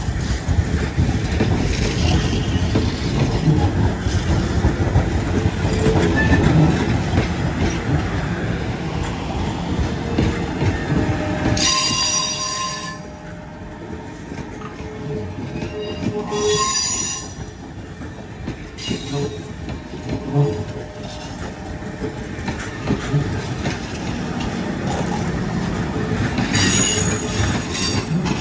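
Passenger train cars rolling past close by, a heavy steady rumble and clatter of wheels on rail that eases off about halfway through. High-pitched wheel squeal breaks out three times: just before halfway, a few seconds later, and near the end.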